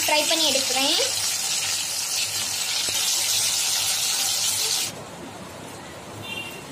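Pieces of dough deep-frying in hot oil in an aluminium kadai, the oil sizzling steadily. The sizzle cuts off suddenly about five seconds in, leaving a quieter background.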